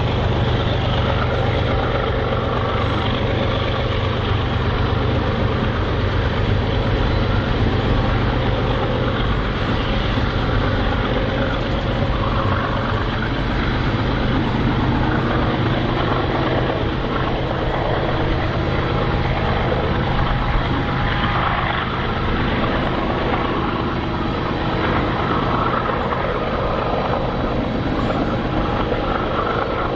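BNSF diesel freight locomotive's engine running with a steady low drone.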